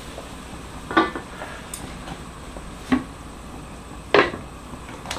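Wok lid and cookware clanking as blanched lamb bones are moved from an iron wok to a clay pot: three sharp knocks spread over a few seconds, the first with a brief metallic ring, over a steady low hum.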